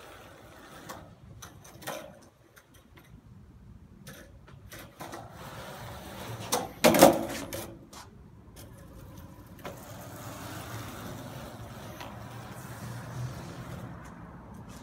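Skateboard on a concrete walkway: scattered clacks of the board, a loud clattering impact about seven seconds in, then the steady rumble of the wheels rolling over concrete.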